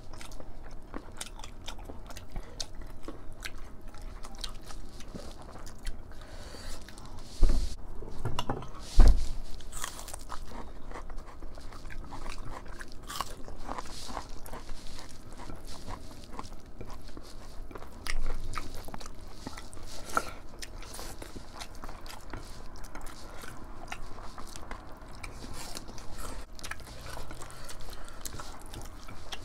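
Close-miked chewing and crunching as two people eat rice and mutton curry by hand. Two dull thumps come about a second and a half apart, roughly a quarter of the way in, and a smaller one comes near the middle.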